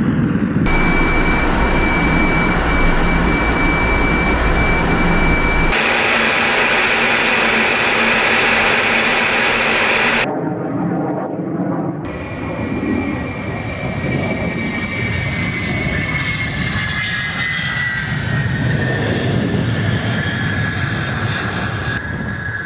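Twin afterburning turbofan engines of MiG-31BM interceptors. First comes loud jet noise with a steady high whine, changing abruptly a few times. After about twelve seconds comes a whine that slowly falls in pitch as a landing MiG-31 rolls out on the runway.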